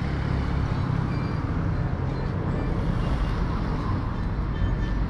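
Steady low rumble of street traffic, with a vehicle engine running close by.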